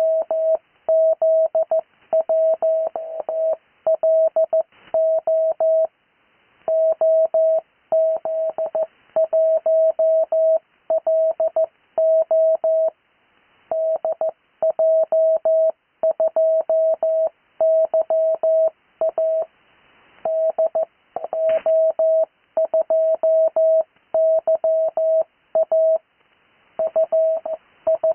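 Morse code (CW) tone of about 600 Hz keyed on and off in dots and dashes, sending amateur radio call signs, each sent twice, at a faster practice speed, with short pauses between character groups.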